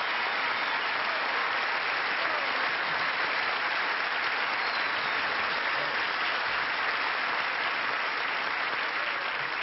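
Audience applauding, a dense, steady clapping that holds at one level throughout.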